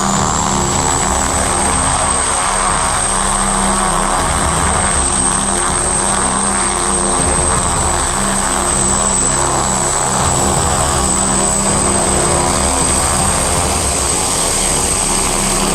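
Aircraft engine running steadily and loudly, with a steady high-pitched whine over a constant low drone.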